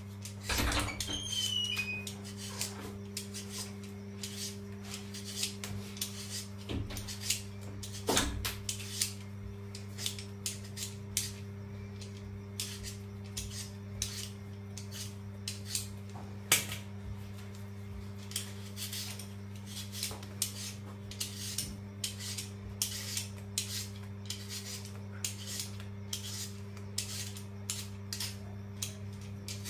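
Handheld vegetable peeler scraping the skin off a raw potato in repeated short strokes, a few each second. A steady low hum runs underneath.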